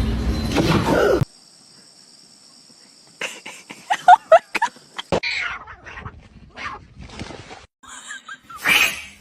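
A loud rush of noise that cuts off about a second in. After a short lull come a run of sharp clicks and a few short high-pitched animal calls about four seconds in, then scattered knocks and rustles.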